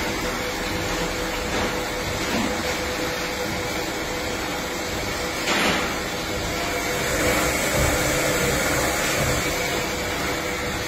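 CNC lathe running with a steady mechanical hum and whir that carries a held tone, with one brief louder burst about five and a half seconds in.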